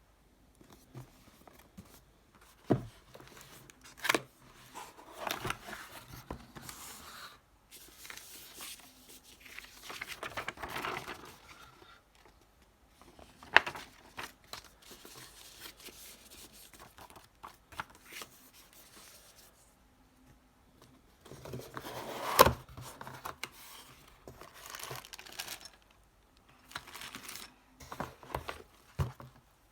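Typing on a mechanical keyboard with Kailh Speed Copper tactile switches and PBT keycaps: runs of quick keystroke clacks, broken by short pauses. A few single keys, likely the space bar or other larger keys, land louder than the rest, the loudest near the middle and about two-thirds of the way through.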